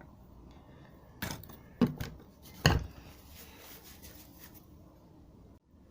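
Sharp knocks and clinks of disassembled steering-rack parts being handled and set down, three distinct hits in the first three seconds with the third the loudest, then light handling noise.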